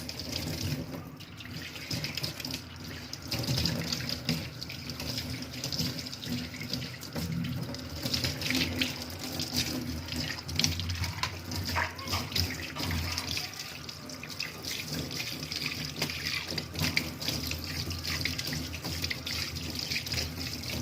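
Kitchen tap running into a stainless-steel sink as it is rinsed, a steady splashing hiss with small knocks and clatter from hands working in the basin.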